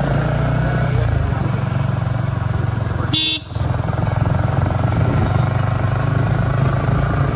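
Motorcycle engine running steadily at cruising speed, heard from the rider's own bike. About three seconds in it drops out briefly and a short, high horn toot sounds.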